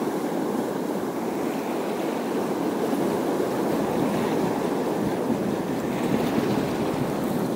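Sea surf washing steadily on a rocky shore, an even rush with no distinct breaks, mixed with some wind on the microphone.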